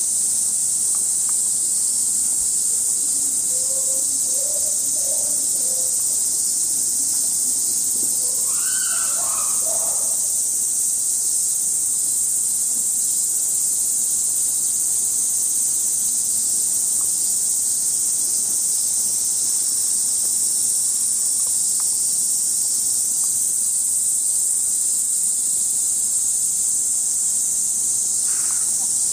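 Steady, high-pitched drone of a summer cicada chorus. Faint brief calls come through a few seconds in and again around the ninth second.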